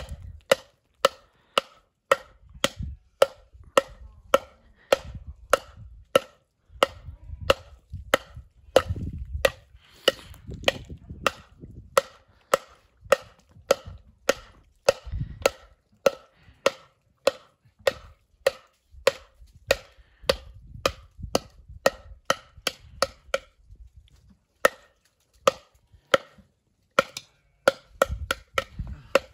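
A red cup knocked again and again against the ice of a frozen puddle, about two sharp, ringing knocks a second, with a couple of short pauses near the end.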